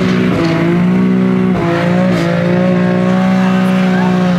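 BMW M3 engine running hard and loud as the car drives, heard from inside the cabin; its note holds fairly steady, with a brief dip about a second and a half in.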